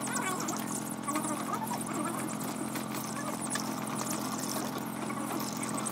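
Young poultry in a cage peeping over and over in short, high calls, over a steady low mechanical hum.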